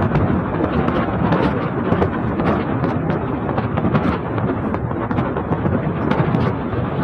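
Wind buffeting the microphone of a phone held out of a moving car's window, mixed with road noise: a steady low rumble full of short crackles.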